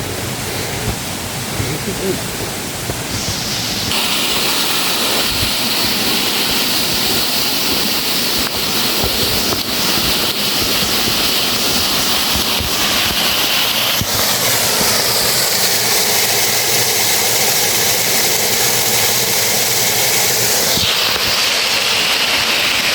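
Water rushing over a cascade on the stream, a steady noise that grows louder about four seconds in.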